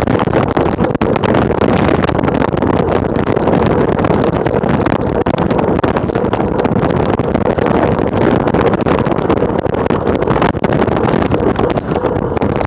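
Steady, loud wind rushing over the microphone of a camera mounted on a moving road bike, mixed with the rumble of tyres on a tarmac lane, with many quick small knocks and buffets.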